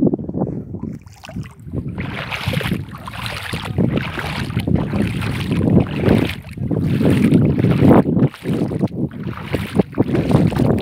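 Shallow brine sloshing and splashing in uneven surges as someone wades through it over a salt crust, with wind buffeting the microphone.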